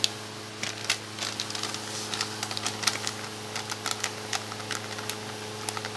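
Broth in an aluminium pressure-cooker pot on the heat, crackling and popping with irregular small ticks, several a second, over a steady low hum.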